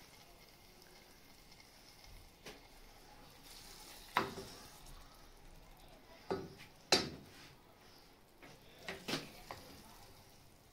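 A spoon knocking and scraping on cookware as cooked keema is spooned into hollowed tomatoes. About six scattered sharp knocks sit over a faint steady background, the loudest about four and seven seconds in.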